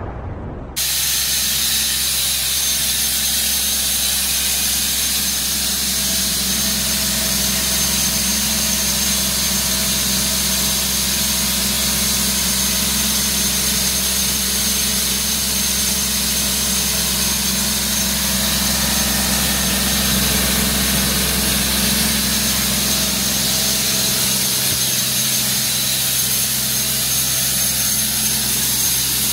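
Doosan D24 four-cylinder diesel engine of a portable 185 CFM air compressor running at a steady speed, an even drone with a constant hum.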